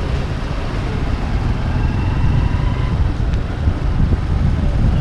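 Wind buffeting the microphone of an action camera on a moving vehicle, over engine and road rumble from traffic.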